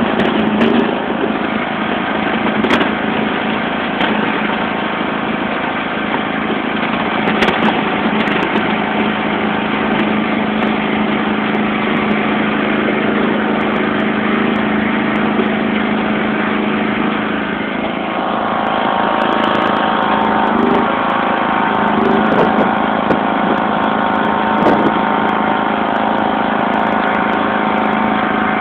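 1991 John Deere LX176 lawn tractor's 14 hp overhead-valve engine running steadily as the tractor plows snow with its front blade. About eighteen seconds in, the engine note grows a little louder and brighter and holds there.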